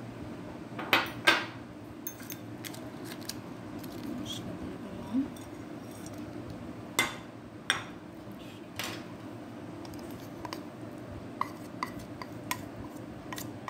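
Small dishes and a spoon clinking and tapping against a glass mixing bowl as spices are tipped onto raw beef, a scattering of sharp clinks with the loudest pair about a second in. A steady low hum runs underneath.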